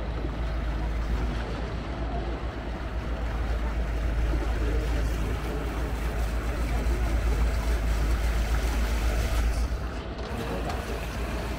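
Steady wind rumble on the microphone over a wash of water, dipping briefly about ten seconds in.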